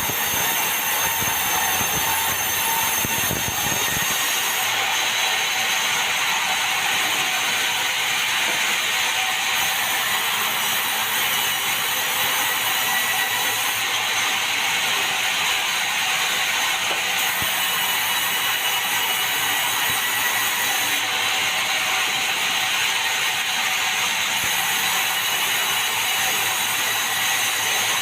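Sawmill saw cutting meranti timber: a loud, steady, harsh noise of blade through wood, with a low rumble underneath that drops away about four seconds in.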